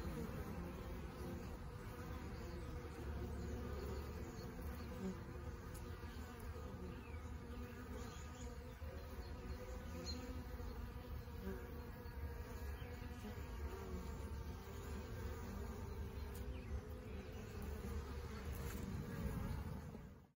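Honeybees buzzing at a hive entrance: a steady, layered hum of many bees flying in and out. It cuts off abruptly at the end.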